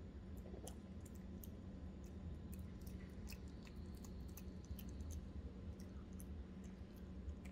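A Maltese puppy chewing a piece of tomato: irregular small, wet clicks and smacks of its mouth.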